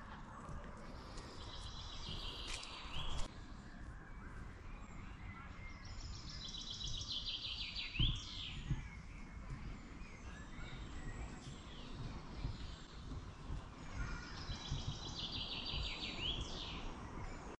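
A songbird singing the same short phrase three times, a few seconds apart: a run of quick high notes ending in a sharp sweep. A steady low rumble of outdoor background noise runs underneath.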